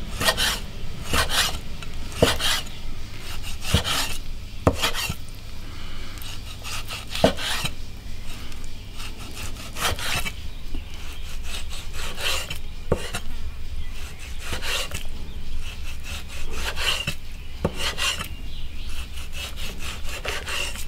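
A cleaver slicing raw lean pork into thin slices on a thick round wooden chopping block: irregular knocks of the blade on the wood, with a rasping rub as the blade draws through the meat between strokes.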